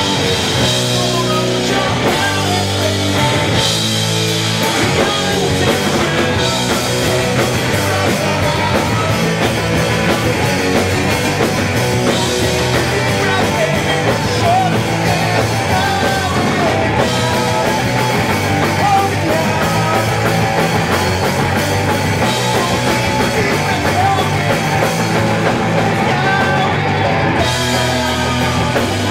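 A punk rock band playing live and loud: distorted electric guitar, bass and a pounding drum kit, with the singer shouting the lyrics over them.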